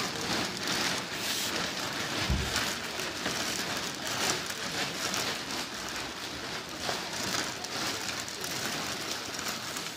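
Thin clear plastic sheeting rustling and crinkling continuously as it is handled, folded and wrapped around a body, with one low thump about two seconds in.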